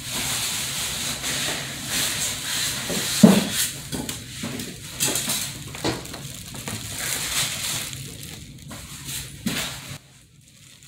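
Clear plastic wrapping crinkling and rustling as an air fryer is pulled out of its bag and box, with a loud thump about three seconds in and a few lighter knocks. It stops shortly before the end.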